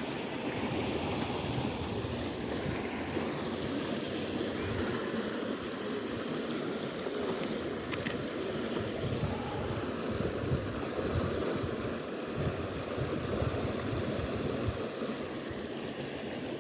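Sea water of a tidal race rushing past rocks: a steady, low, even wash of moving water.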